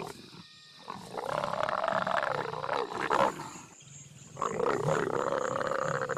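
Leopards growling and snarling while mating: a short snarl at the start, then two long, drawn-out growls, one about a second in and one about four seconds in.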